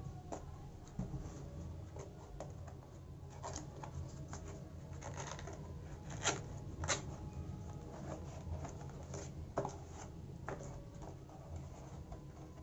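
A keyboard's box being cut open by hand: irregular scratching and scraping with scattered sharp clicks, two of them louder a little past the middle.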